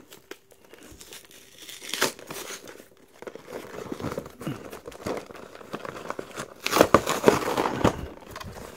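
Cardboard and paper packaging being handled and torn open: irregular crinkling, rustling and tearing with scattered clicks, busiest and loudest about seven seconds in.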